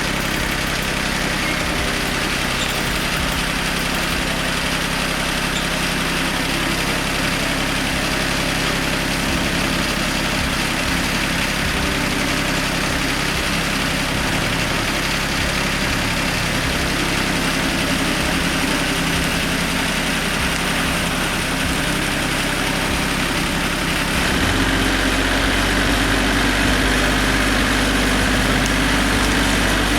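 Tractor engine running steadily. About three-quarters of the way through, its note changes and it gets a little louder, as the engine speed changes.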